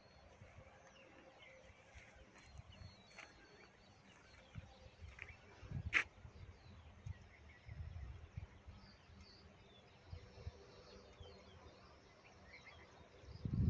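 Faint open-air ambience with distant birds chirping now and then. There is a sharp click about six seconds in and a few low rumbles.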